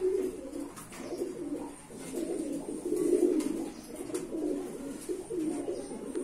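Domestic pigeons cooing over and over, low warbling coos coming in phrases about a second long.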